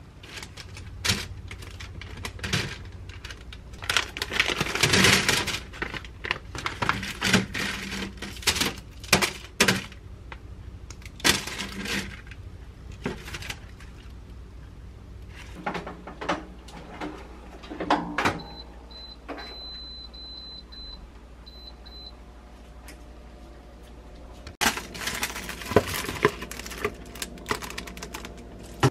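Kitchen food-prep handling sounds: parchment paper rustling and light knocks as sausages and cubed sweet potato are laid into a wire air-fryer basket, with a thin high beeping for a few seconds past the middle. Near the end there is water splashing as salad greens are soaked and washed in a plastic bowl of cold water.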